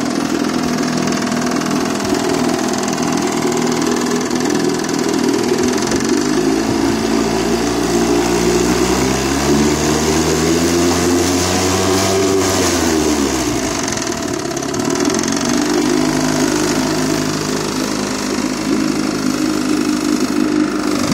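1966 Johnson JH21-E 3 hp two-stroke outboard running in a water test tank, freshly tuned with new coils, points, condensers and spark plugs. Its speed climbs gradually from about a quarter of the way in, peaks a little past halfway, then drops back to a steady run.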